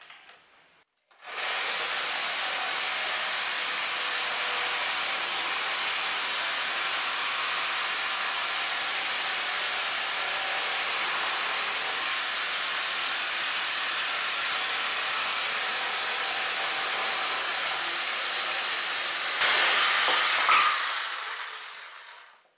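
Chicago Electric corded reciprocating saw (Harbor Freight item 62370) cutting across a wooden board with an old, worn blade. It starts about a second in and runs steadily, gets louder for a second or two near the end as it finishes the cut, then fades out as the saw stops.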